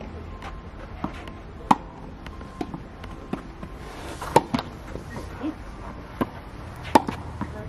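Tennis balls struck by rackets: three sharp hits about two and a half seconds apart, with softer knocks of balls bouncing between them.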